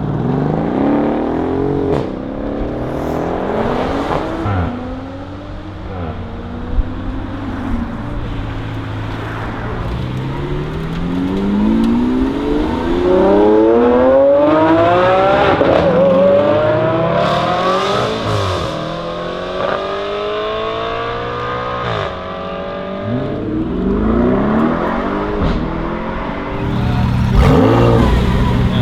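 Lamborghini Aventador SVJ's 6.5-litre V12 revving and accelerating several times, its pitch climbing and then falling sharply as the throttle lifts or the gearbox shifts. The longest climb is a steady pull running from about a third of the way in to past the middle.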